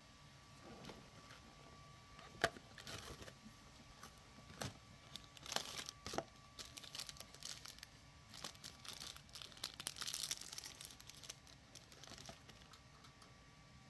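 Foil biscuit sachet crinkling and tearing as hands take it from a cardboard box and rip it open: irregular rustles and crackles, with a sharp click about two and a half seconds in.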